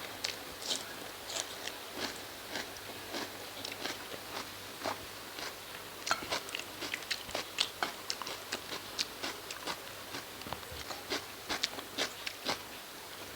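A person eating dal and rice close to the microphone: chewing with many short, wet mouth clicks, sparse at first and coming faster and louder from about halfway through.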